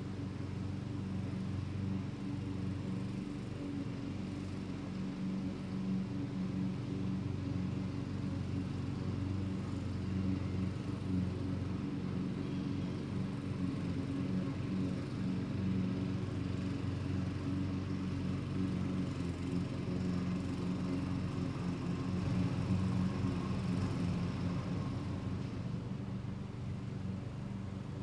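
Lawn mower engines running steadily, a continuous hum that swells slightly in the last third.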